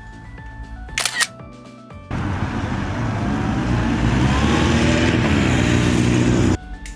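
Light background music with a sharp burst about a second in, then a loud noisy sound effect with faint rising whistles that starts suddenly about two seconds in and cuts off suddenly after about four and a half seconds.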